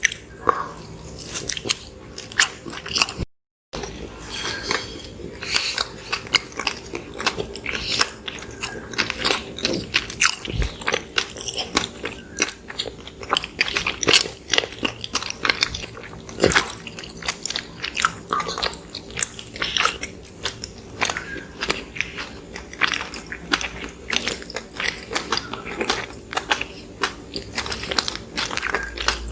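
People chewing and biting soft cinnamon rolls: a steady run of irregular wet mouth clicks and smacks, with a brief gap of dead silence about three seconds in.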